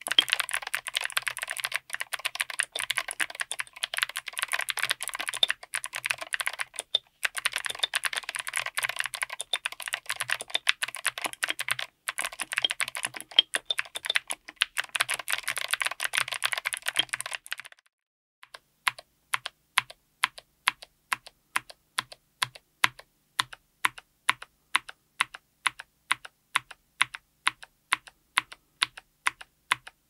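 Mechanical keyboard with Gateron Melodic click-leaf clicky switches, SA profile ABS keycaps, an FR4 plate and an aluminium case: fast two-handed typing, then after about 18 seconds single keys pressed and bottomed out one at a time, about two clicks a second.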